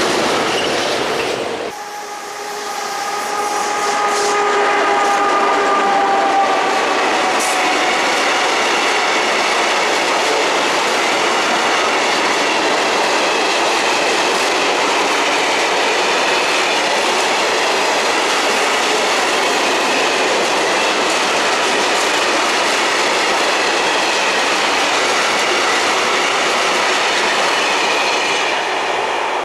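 A train running over a level crossing, its wheels clattering over the rails in a loud, steady rush. From about two seconds in, a drawn-out tone slides slowly down in pitch and fades over several seconds.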